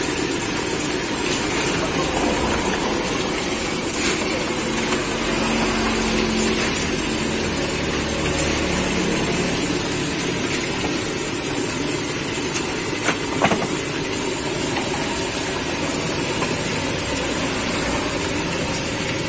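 Eels deep-frying in a wok of hot oil: a steady sizzle, with a couple of sharp clicks of the spatula against the wok about thirteen seconds in. The eels were half-fried beforehand and are being reheated and finished in the oil. A low hum runs underneath from about five to nine seconds in.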